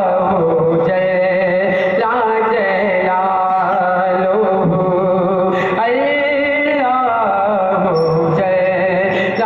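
A man singing a devotional Islamic chant (naat) solo into a microphone, unaccompanied, in long held notes that bend and waver up and down.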